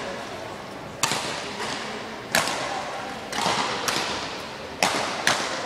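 Badminton rackets hitting the shuttlecock during a rally: a string of sharp cracks about a second apart, each echoing in the large sports hall.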